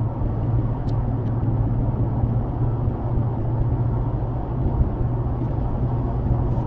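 Steady low drone of a car cruising at highway speed, engine and tyre road noise heard from inside the cabin.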